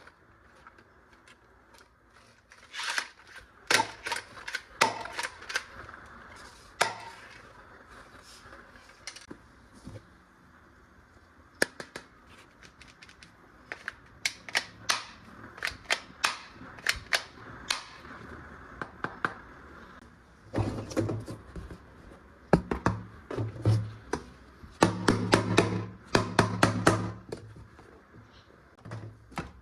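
Sharp plastic clicks and snaps from toy guns being handled and worked, scattered at first, then a denser run of louder clattering bursts over the last third.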